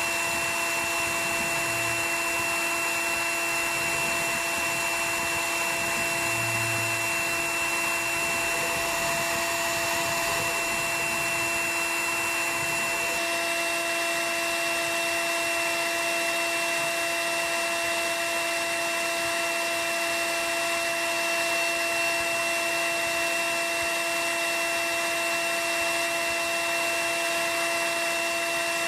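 CNC router spindle running steadily while a radius cutter mills wood, a constant whine with several fixed tones over a rushing hiss. About halfway through the low rumble drops away.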